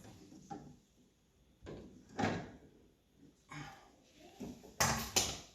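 Wooden trim and lattice pieces being handled: a few light knocks and scrapes, with a quick double knock near the end, the loudest.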